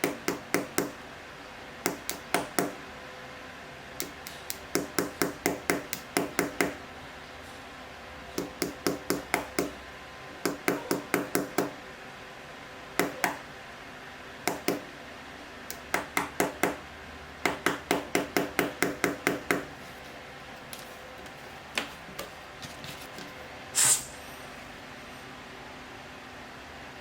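Light, quick taps with a pen on a CCTV lens's optical block, seating a lens element. The taps come in runs of several, about four or five a second, with pauses between runs, and one louder, sharper knock near the end.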